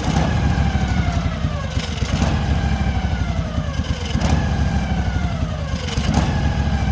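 Portable sawmill's engine running steadily, with a falling whine that repeats about every two seconds, each one starting with a short knock.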